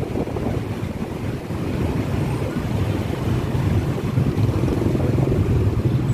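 Small motorcycle engines running as a convoy rides slowly along, heard from a moving motorcycle, with wind buffeting the microphone in a choppy low rumble.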